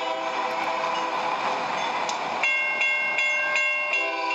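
A train horn sounds a held chord of several steady tones. About two and a half seconds in it gives way to a railroad crossing bell ringing about three times a second, and the horn chord comes back near the end. Both are heard as playback through a tablet's speaker.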